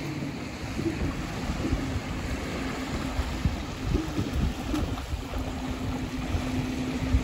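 Gusty wind buffeting the microphone, with surf washing in behind it. A faint steady low hum comes and goes.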